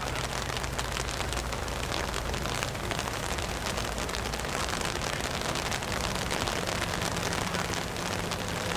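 Steady rain falling, with a dense, even patter of drops.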